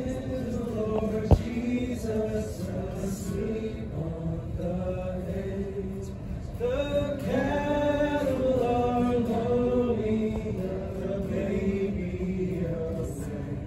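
A man singing to an acoustic guitar, with other voices singing along. A single sharp knock about a second in.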